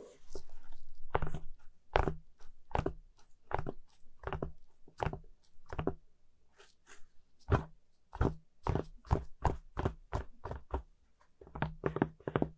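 Cotton-gloved hands tapping and rubbing on a cardboard toy box: a string of short, irregular knocks, sometimes two or three close together, with a stretch of rubbing about a second in.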